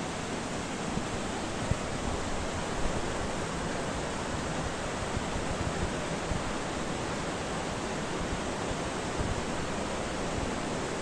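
Steady rushing of a waterfall, an even hiss with no change in level, with a few faint bumps.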